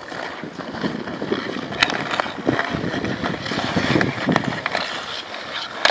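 Hockey skates scraping and carving on rink ice, with short sharp clicks of a stick handling the puck.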